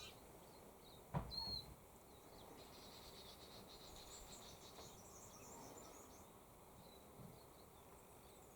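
Near silence: faint outdoor ambience with a few faint high chirps and a short knock about a second in.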